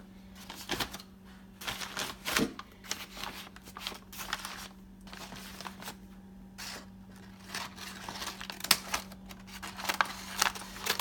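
A package being opened by hand: irregular rustling, crinkling and tearing of packaging with scattered sharper clicks and handling knocks.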